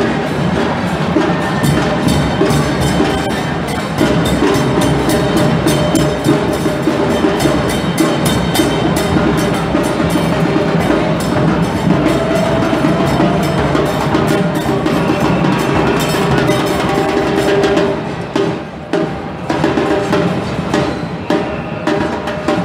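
A marching drum band of bass drums and snare drums playing a fast, busy beat with many sharp cracks. The drumming thins out about eighteen seconds in.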